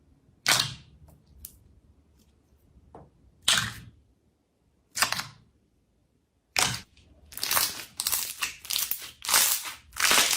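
Slime being pressed and squeezed, giving sharp crackling pops: three single pops a couple of seconds apart, then a quick run of crackles from about two-thirds of the way in.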